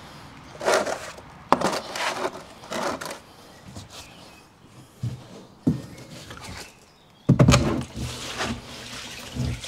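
Gasoline sloshing and splashing inside a large plastic fuel tank as it is tipped to drain a dirty flush into a drain pan, in irregular surges. About seven seconds in there is a heavy, hollow thump as the tank is set back down.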